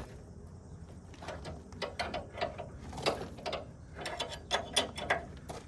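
Irregular run of sharp mechanical clicks, about three a second, starting about a second in, like a ratchet being worked by hand.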